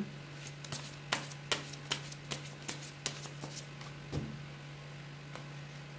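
Tarot deck shuffled by hand: a quick run of soft card clicks and flicks for about three seconds, then thinning to a few scattered ones.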